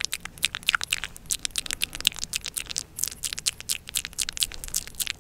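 Close-miked ASMR trigger sounds: a quick, irregular run of crisp little clicks and scratchy ticks, many a second, from hands and a make-up brush worked right at the microphone.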